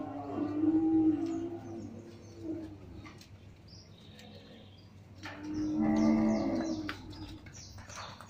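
Cattle mooing: one long moo at the start, loudest about a second in, and a second long moo about five seconds in.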